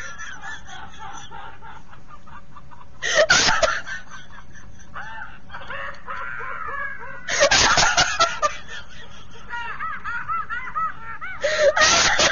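A woman laughing uncontrollably, close to tears. Loud bursts of laughter come about three seconds in, around seven seconds in and near the end, with quieter giggling and gasping between them.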